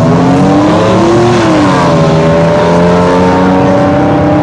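A car engine held at revs while staging at a drag strip start line. The pitch climbs for about a second and a half, drops back, then holds high and creeps slowly upward.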